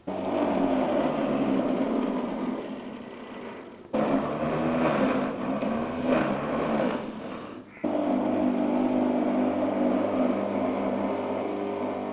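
Electric juicer motor whirring as carrots are pushed down the feed chute and shredded. The motor starts suddenly, and its sound breaks off and comes back twice. It is rougher and more grinding in the middle stretch.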